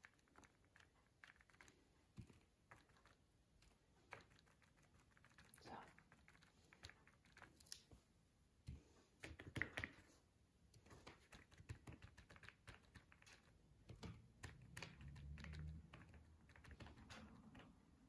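Faint, irregular taps of a paint-loaded sponge dabbed onto paper, with a louder cluster of taps about ten seconds in.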